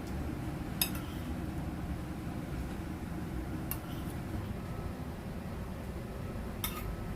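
Cutlery clinking against a dish three times, a few seconds apart, each a short bright clink with a brief ring, over a steady low hum.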